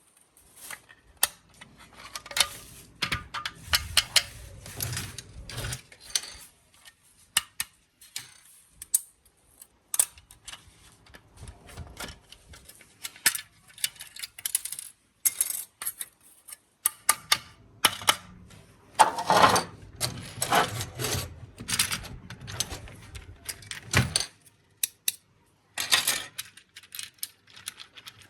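Small plastic parts of a toy car being handled and taken apart: irregular sharp clicks and taps, with two longer stretches of rattling and scraping, about three seconds in and again from about seventeen to twenty-four seconds in.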